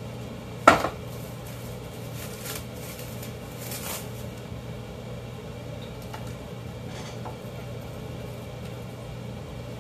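Plastic wrap crinkling as it is pulled off a bowl, after a single sharp click under a second in, over a steady low hum.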